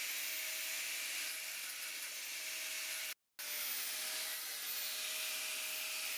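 Angle grinder running against the welds of a steel turbo log manifold, a steady high-pitched hiss of abrasive on metal. It breaks off for a split second about three seconds in and then carries on.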